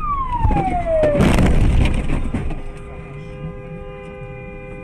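A wailing siren falling in pitch cuts off about a second in, followed by a loud rushing burst of noise. After that a car horn is held down, sounding one steady two-note blare.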